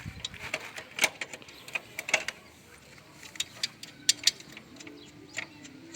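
Irregular sharp metallic clicks and knocks of tools and metal parts being handled while a motorcycle's aftermarket exhaust is unbolted and removed. The loudest knocks come about a second in, around two seconds in, and just past four seconds.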